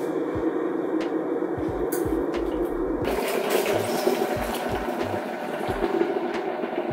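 Electric kettle rumbling steadily near the boil, with light knocks of mugs and kettle being handled. From about three seconds in, a brighter hiss of hot water being poured from the kettle into a mug.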